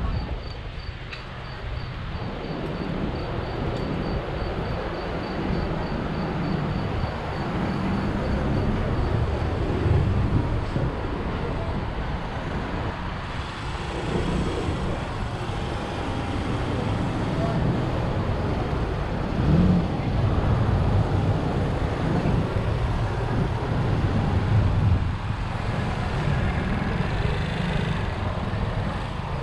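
Town street traffic: motor vehicles running and passing, a steady rumble with no single stand-out event. A faint, regular high ticking runs through roughly the first eight seconds.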